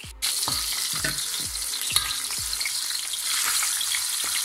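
A whole fish frying in a shallow pool of hot oil in a wok: a loud, steady sizzle that comes in abruptly just after the start. A sharp click about two seconds in.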